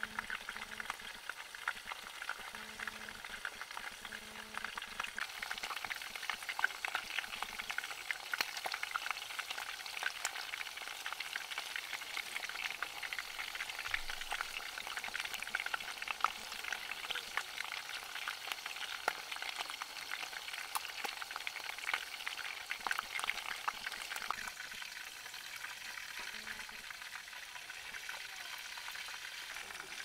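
Chicken pieces frying in hot oil in a small camping pot, a steady crackling sizzle of many fine pops. The crackle thins a little near the end.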